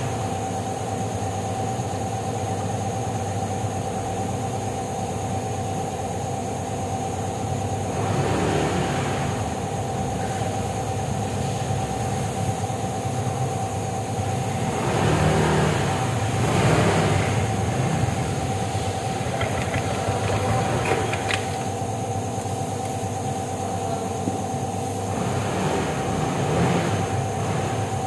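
Honda PCX 160 scooter's small single-cylinder engine running at low speed, swelling louder a few times as the throttle is opened to pull away and ride slowly.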